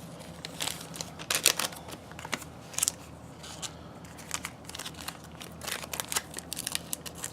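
A foil trading-card pack wrapper crinkling and crackling in the hands as it is worked at to be opened, a series of irregular sharp crinkles and clicks.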